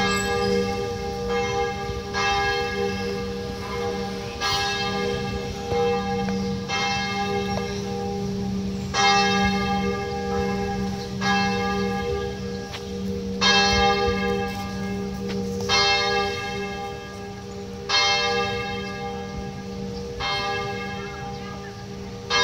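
St. Joseph's Cathedral church bell tolling slowly, struck about every two seconds, each strike ringing on with a steady low hum between strokes.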